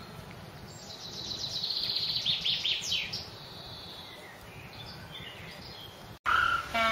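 A songbird singing a rapid trill of high notes with a few falling sweeps, over a steady outdoor background. Near the end, after a sudden break, a loud drawn-out bleating animal call begins.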